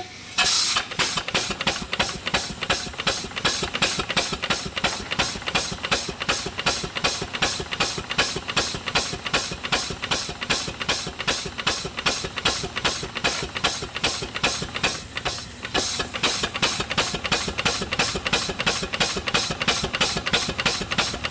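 Small vintage vertical steam engine running on compressed air instead of steam: a burst of hiss as the air is let in, then an even, fast chuff of exhaust on every stroke. It runs freely and smoothly after being oiled and freed up from years of sitting.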